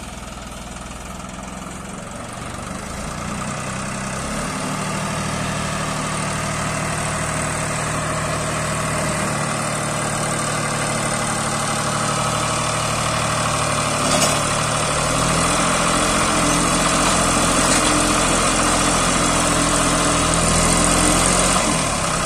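Diesel engine of a John Deere tractor-mounted Dasmesh 912 combine harvester running steadily, growing louder throughout, with a slight change in its note about four seconds in and again near fifteen seconds.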